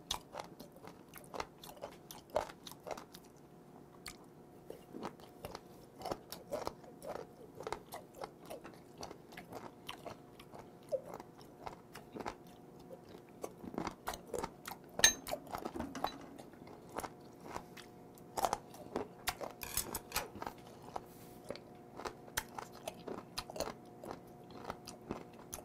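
Close-miked chewing of raw shellfish: a long run of short, crunchy bites and mouth clicks, the loudest about halfway through.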